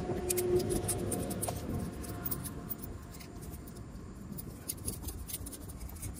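Scattered light clicks and scraping from hands and tools working a battery cable and its terminal, over a low steady rumble.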